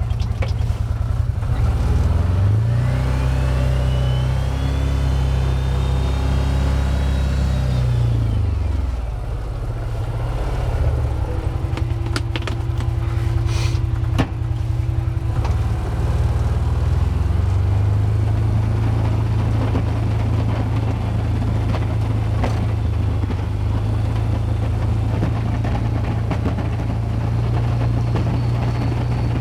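2012 Can-Am Commander 1000 XT side-by-side's Rotax V-twin engine revving up while pushing snow with its plow, holding, easing back, then rising again and running steadily. A steady whine sits in the middle, with a few sharp knocks.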